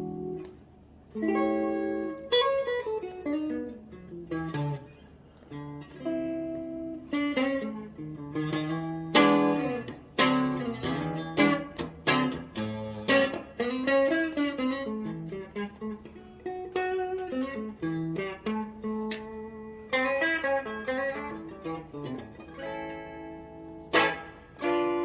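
Gibson CC#34 electric guitar played with a clean tone: ringing chords broken up by single-note runs and descending lines.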